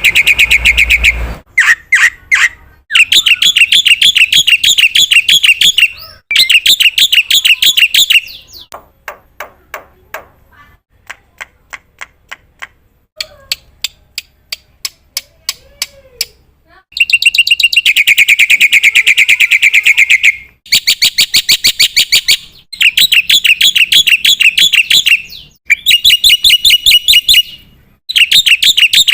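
Black-winged myna (jalak putih) singing loudly in bursts of fast, repeated chattering notes a few seconds each, with a quieter stretch of spaced clicking notes in the middle.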